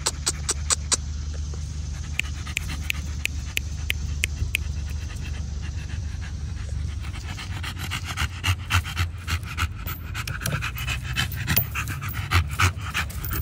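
American bully dog panting with its tongue out, a steady run of quick breaths that grows louder from about eight seconds in.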